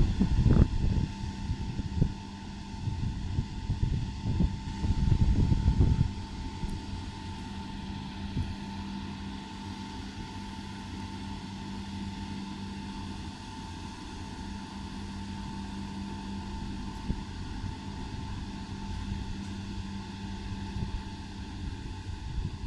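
VR Sm2 electric multiple unit at a station platform, its electrical equipment giving a steady hum with a constant thin high tone and a low drone. For the first six seconds, gusts of wind buffet the microphone.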